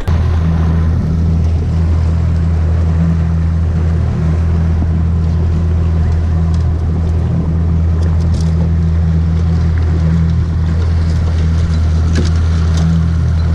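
Boat's outboard motor running at a steady speed while the boat is under way, with a rush of wind and water.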